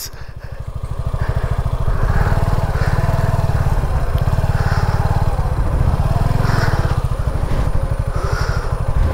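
Suzuki V-Strom SX 250's single-cylinder engine running at steady low revs under way, its firing pulses close and even, with no revving up or down.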